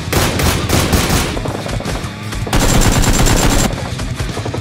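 Two bursts of rapid automatic gunfire over background music: the first lasts about a second at the start, and a louder second burst comes just past the middle.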